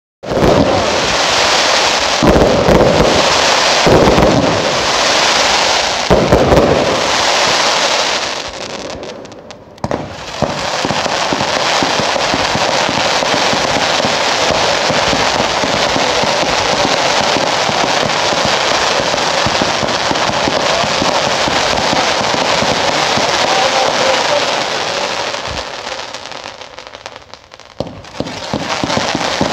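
Consumer fireworks (category 2 cakes and T2 single shots) firing in a dense, continuous barrage of bangs and crackling, with heavy booms in the first several seconds. The barrage briefly thins about nine seconds in and again near the end before picking up.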